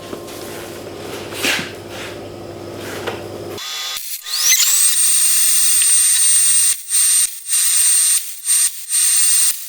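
Metal struck a couple of times with a hammer, ringing. About three and a half seconds in, it changes abruptly to a small high-speed power tool that spins up with a rising whine to a steady high pitch and runs on, cutting out briefly several times.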